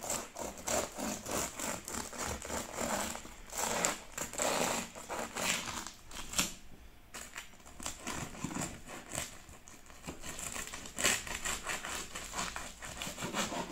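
Serrated bread knife sawing through the crisp crust of a pizza alla pala, with irregular crackling and crunching that comes in runs with brief lulls. The crunch shows that the crust, soft after two days in the fridge, has turned crisp again after reheating on a baking stone.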